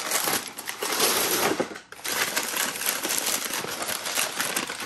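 White paper wrapping around a candle crinkling and rustling as it is handled, with a short lull a little under two seconds in.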